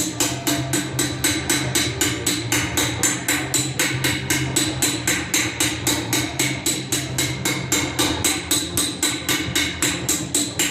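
Hammer planishing metal on an anvil: fast, even strikes about five a second, each with a bright metallic ring.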